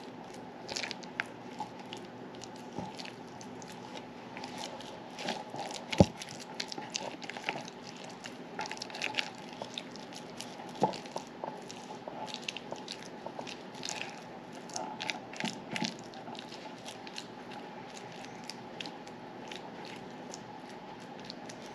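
Silicone spatula pressing and smoothing raw ground-beef meatloaf mixture into a metal loaf pan: soft wet squishing with many small scattered clicks and taps. One sharper knock about six seconds in.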